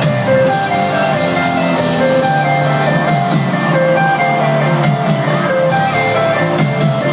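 Live instrumental music over a large stadium sound system, heard from within the crowd: held notes stepping through a repeating melodic figure at a steady loud level.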